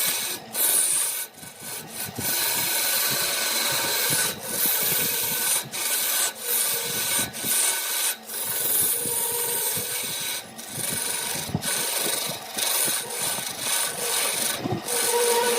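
A wood lathe turning, with a tool scraping against the spinning workpiece in a continuous rasping noise over a faint steady motor whine. The tool lifts off briefly every second or few.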